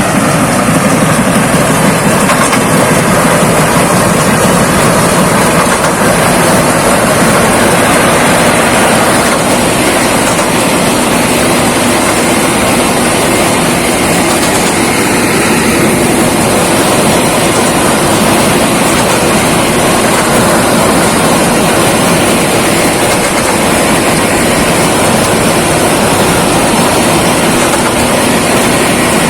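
Thai Seng Kaset 'Chao Phayu' rice combine harvester running steadily while harvesting: its diesel engine and threshing machinery make a loud, constant mechanical clatter.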